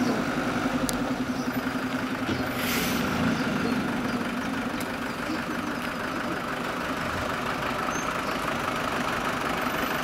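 Engines of fire-brigade crew vans and a fire engine running at low speed as the convoy rolls slowly past. There is a brief hiss about three seconds in.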